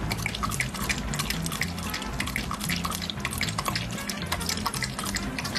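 A dog lapping milk from a bowl: a quick, uneven run of short wet clicks and drips as its tongue dips into the milk. Background music with low held notes plays underneath.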